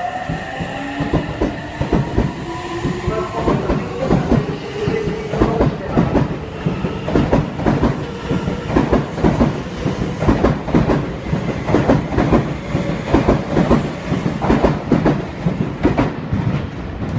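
Seibu 6000-series electric commuter train pulling out of the station: its motors whine in rising tones for the first few seconds as it gathers speed. The wheels then clack over the rail joints in a steady rapid rhythm as the cars run past.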